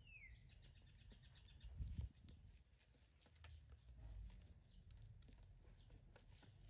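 Near silence with faint rustling and clicks of a disposable diaper being fastened on a baby monkey. A short falling chirp comes at the very start, and there is a dull low bump about two seconds in.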